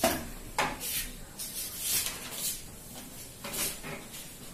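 Felt board duster wiping marker writing off a whiteboard: a series of short rubbing swishes, several close together in the middle.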